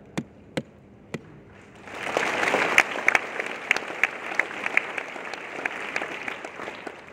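Audience applauding: a few single claps at first, then about two seconds in the whole room breaks into applause, which slowly dies down near the end.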